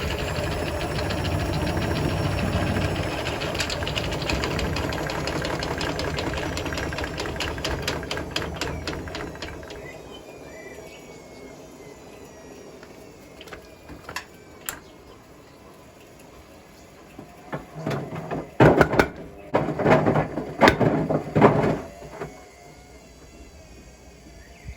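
Hotpoint WMFUG742 washing machine's drum spinning down, its motor whine falling in pitch and fading over the first ten seconds. After a quieter stretch come a couple of sharp knocks, then a run of loud, irregular clunks near the end as the drum turns and the brick tumbles inside it.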